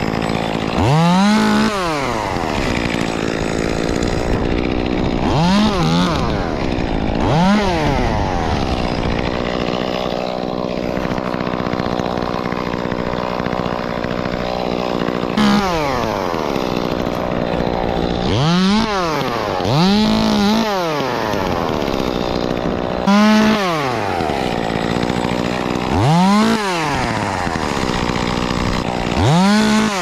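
Top-handle climbing chainsaw idling, revved up about nine times in short bursts that rise and fall in pitch as limbs are cut from the cedar.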